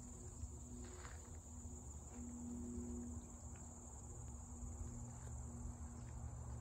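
Field crickets singing in a steady, unbroken high-pitched drone, over a faint low rumble.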